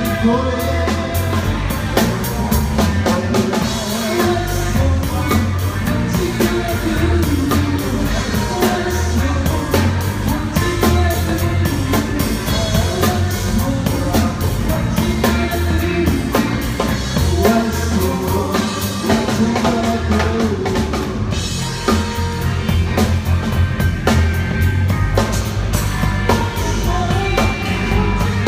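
Rock band playing live: a drum kit driving the beat under electric guitars and bass, at a steady loud level throughout.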